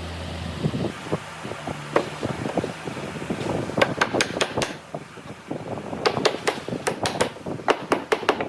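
A steady low machine hum stops just after the start, then a run of sharp taps and knocks in quick clusters, typical of hand work on a workshop bench.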